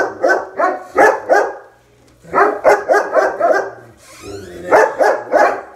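German Shepherds barking in quick runs of several barks, about three a second, with a short pause about two seconds in: guard barking at the front door.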